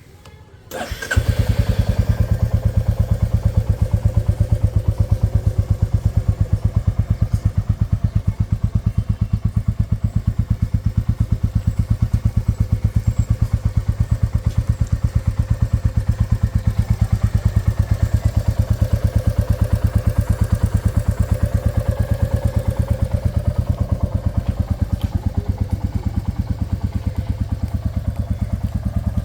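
Royal Enfield Classic 350's single-cylinder engine starting about a second in, then idling steadily with an even, rapid beat.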